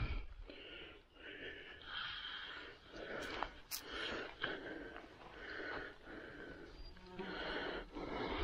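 Footsteps rustling through dry leaf litter, about one swish a second, with the walker's breathing, after a sharp knock of the camera being handled at the very start.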